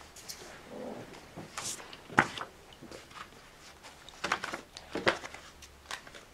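Papers being handled, with a few short sharp knocks, the loudest about two seconds in.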